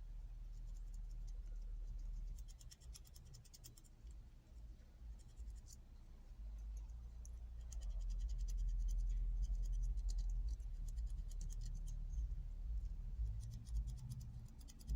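Rapid scratchy scrubbing strokes in bursts as old grease is cleaned off the parts of a disassembled Craftsman thumbwheel ratchet, over a low hum.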